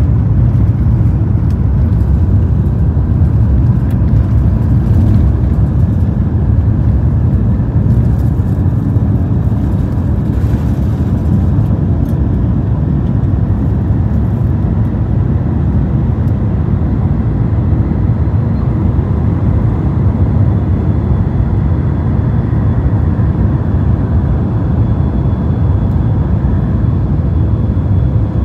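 Cabin noise from a window seat of a British Airways Airbus A350 at takeoff, its Rolls-Royce Trent XWB engines at takeoff thrust: a loud, steady low rumble with faint high whining tones as the jet rolls down the runway and climbs away.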